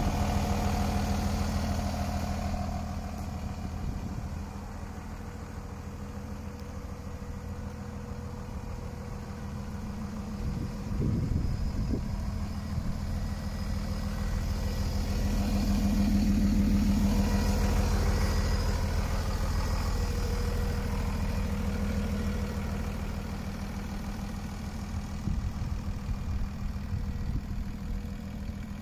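DAF LF 230 truck's four-cylinder PACCAR PX-5 diesel engine idling steadily. It grows louder for a few seconds past the middle, then settles back.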